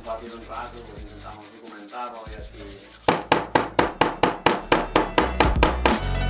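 Metal meat-tenderizer mallet pounding slices of abalone on a wooden cutting board. The rapid, even blows, about four or five a second, start about halfway through and are the loudest sound.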